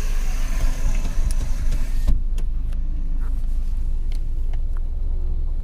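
Low rumble of a car running, heard from inside the cabin. The brighter outside road hiss drops away abruptly about two seconds in, leaving the rumble and a few faint clicks.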